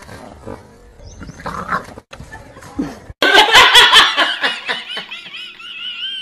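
Two women laughing hard and shrieking, breaking in suddenly about three seconds in. The laughter ends in a long, wavering high-pitched squeal.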